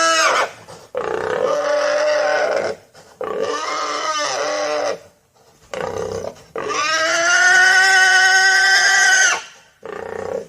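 Pigs squealing in a run of long, loud, high-pitched calls, about five of them, each held steady for one to three seconds with short breaks between. The longest call comes about two-thirds of the way through.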